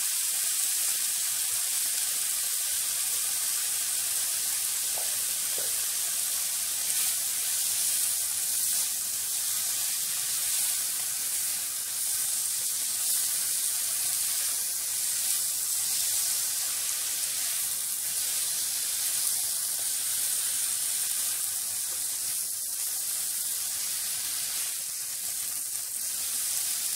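Sliced sausages, onion and tomato sizzling steadily in oil in a nonstick frying pan, stirred now and then with a spatula.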